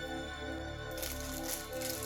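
Background music with held notes. From about a second in, a crinkly rustling noise of handling runs over it.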